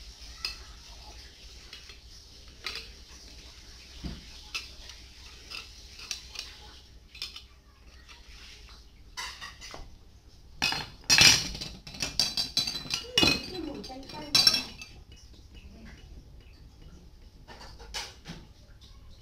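Homemade steel rebar tire levers clinking against each other and the tiled floor as they are handled and set down, with a busier run of clinks about halfway through.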